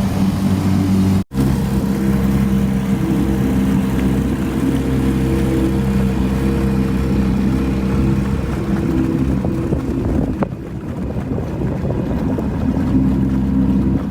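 A motor or engine running steadily with a loud, even hum. It cuts out for an instant about a second in, then carries on with a changed hum.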